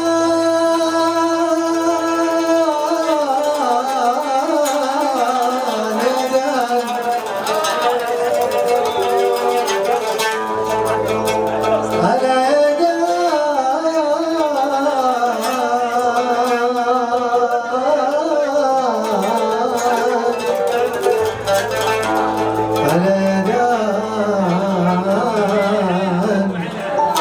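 Arabic music: an ornamented, wavering melodic line over low bass notes that drop in and out.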